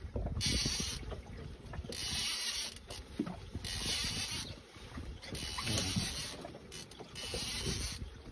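Small waves lapping and sloshing against the hull of a drifting boat, in swishes about every one and a half to two seconds, over a low rumble of wind on the microphone.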